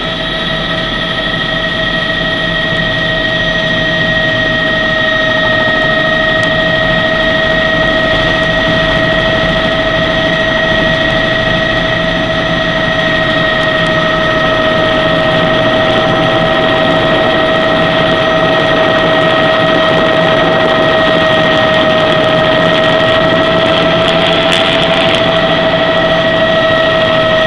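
Helicopter engine and rotor heard from inside the cabin: a steady loud drone with several constant high whining tones, unbroken as it comes in to land on the helipad.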